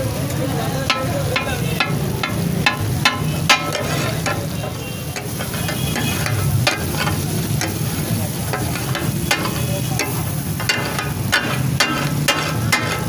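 Flat metal spatulas clattering and scraping on a large flat griddle (tawa), chopping and tossing fish in oil for takatak, in uneven quick clusters of ringing strikes. Sizzling oil and a steady low hum run underneath.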